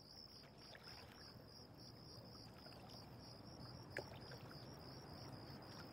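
Faint crickets chirping in an even, pulsing rhythm of about three pulses a second, with a faint click about four seconds in.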